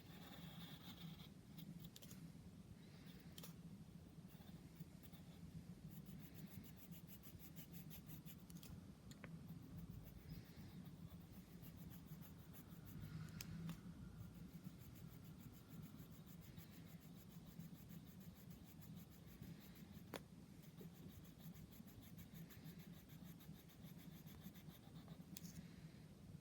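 Faint scratching of a drawing tool on paper as a picture is drawn and coloured, with a few sharp clicks.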